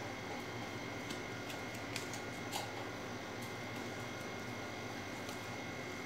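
Several faint taps and clicks of an oracle card deck being handled and a card drawn, over a steady background hiss with a thin, steady electronic whine.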